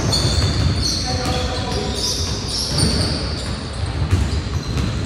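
Basketball bouncing on a hardwood gym floor, mixed with the short high squeaks of sneakers on the court.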